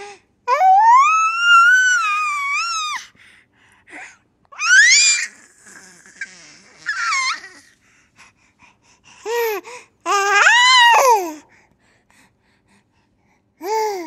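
A baby laughing in long, high squeals that rise and fall in pitch, in about five bursts with short pauses between them.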